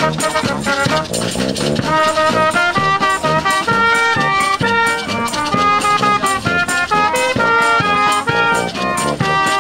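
Brass band with drums playing a lively tune: trumpets carry the melody over a sousaphone bass line, while snare and bass drum keep a steady beat.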